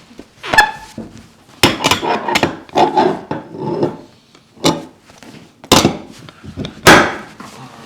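Sharp knocks and cracks from a chiropractic adjustment, with rubbing and shuffling between them: about seven distinct hits, the loudest near the end.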